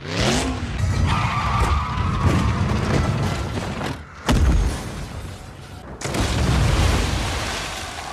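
Action-film soundtrack: a music score mixed with blast booms and vehicle sound effects, with a sharp, heavy boom a little over four seconds in.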